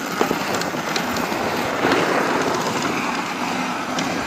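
Small dirt bike engine running as the bike rolls down a loose dirt and gravel hill trail, with scattered short clicks and knocks throughout.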